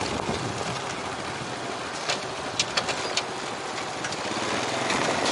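Motorbike engine running steadily under the rider, with road and wind noise. A few sharp clicks come about two to three seconds in, and the engine grows louder near the end.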